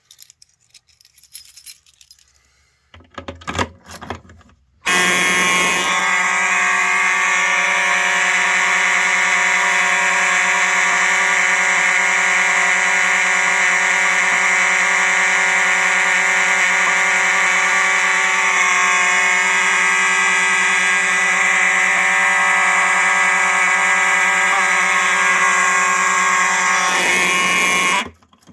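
A few clicks and knocks, then two Simplex mechanical fire alarm horns (a 4903 horn/strobe and a 4901 horn) start about five seconds in and sound continuously: a loud, unbroken buzzing tone, running on filtered DC from batteries. The horns cut off abruptly just before the end.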